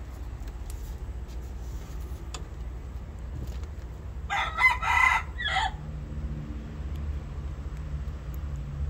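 A junglefowl-cross rooster crowing once, a short crow of about a second and a half that ends in a brief separate final note, over a steady low rumble.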